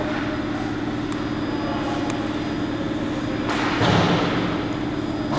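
Ice hockey play in an indoor rink: a steady low hum with a couple of light clicks, then a louder scraping rush and a thud about three and a half seconds in, as players come together along the boards.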